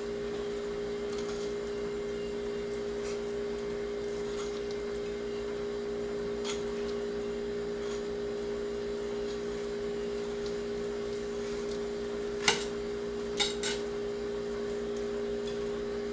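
Fillet knife working through a northern pike fillet, ticking where the blade catches on the Y bones: a faint tick midway, then a sharp click near the end followed by two smaller ones. A steady hum runs underneath throughout.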